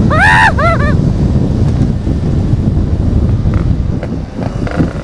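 Yamaha RX King 135cc two-stroke single fitted with a gutted aftermarket exhaust, ridden hard at speed, its engine and exhaust noise mixed with heavy wind buffeting on the microphone. In the first second a short series of high tones rises and falls.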